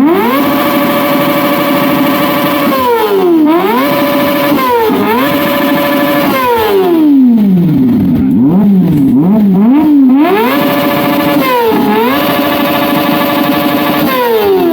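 Kawasaki ZX-25R's small inline-four engine being revved hard through an SC Project short slip-on exhaust. The revs climb sharply and are held high and flat, then drop and climb again several times, with a few quick blips about two-thirds of the way through, before falling away at the very end.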